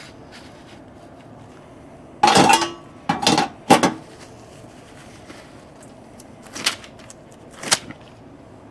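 Metal clanks and scrapes of a charcoal pizza oven's steel door being fitted over the oven mouth and shut: three sharp, ringing clanks about two to four seconds in, then two lighter knocks later on.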